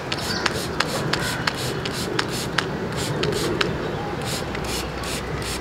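Hand-held plastic trigger spray bottle being pumped quickly, each pull giving a click and a short spritz of fine mist, about three to four sprays a second.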